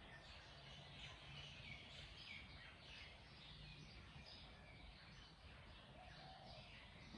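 Near silence: faint, scattered bird chirps over a low steady room hum.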